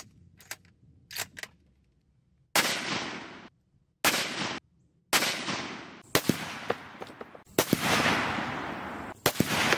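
6.5 Creedmoor bolt-action rifle firing: several sharp reports, each followed by a rolling echo that dies away, some cut off abruptly. A few faint clicks come before the first shot.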